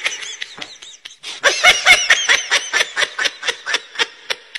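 A person laughing: high-pitched laughter in a long run of quick ha-ha pulses, about five a second, growing louder about a second and a half in.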